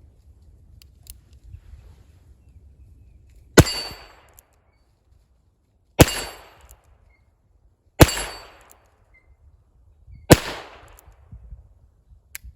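Four single shots from a Heritage Rough Rider .22 revolver, about two seconds apart, each a sharp crack with a short fading echo.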